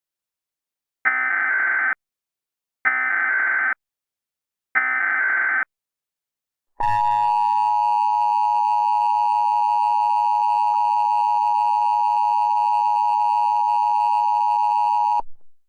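Emergency Alert System SAME header: three short bursts of rapid digital data tones, each about a second long. About a second later the steady EAS attention tone starts and holds for about eight seconds, then cuts off, announcing a weather alert.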